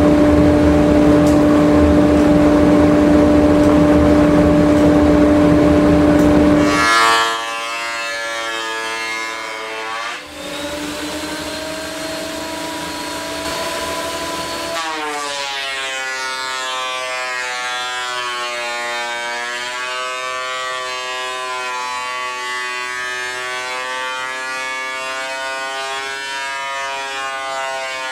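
Metabo benchtop thickness planer planing a rough-sawn oak board: loud cutting noise over a steady motor hum. About seven seconds in, the cut ends and the sound drops to a quieter, steady whine of several held tones that rises in pitch twice.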